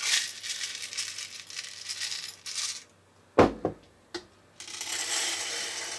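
Dried popcorn kernels poured from a quarter-cup measure into the kettle of a kettle popcorn popper, making a dense rattle of many small hard clicks for about three seconds. A single knock follows, then a second, shorter stretch of rattling near the end.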